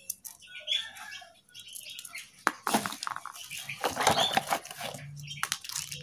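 Handling noise from a small metal mini tripod: clicks, rattles and rustling as its folded legs are opened out and it is stood on a table, with a busier run of clicks about halfway through.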